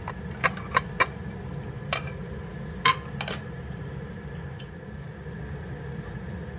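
Sharp metallic clinks and clicks from a pressure cooker and its lid being handled, several in quick succession in the first three seconds or so, over a steady low hum.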